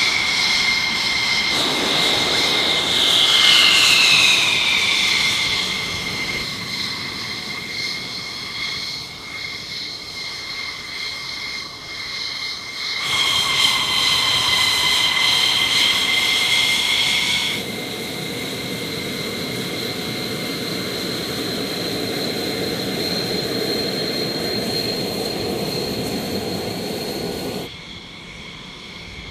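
F-16 Fighting Falcon jet engines whining at taxi power: a loud, steady high-pitched whine whose pitch falls a few seconds in. The sound changes abruptly twice midway and drops in level near the end.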